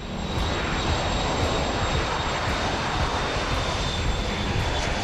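Aircraft engines running: a steady roar with a low rumble and a thin, high steady whine over it.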